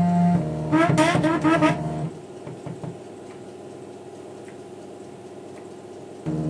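Emco F1 CNC milling machine's Z-axis stepper drive moving the head down: a steady whine, then about five short whines rising in pitch in quick succession, then only a low hum, and one more brief whine near the end.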